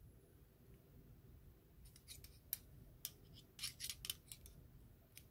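Faint clicks and short scrapes of a digital caliper's sliding jaw being moved and closed against a brushless outrunner motor's can, mostly in a quick cluster from about two to four seconds in, with one more click near the end.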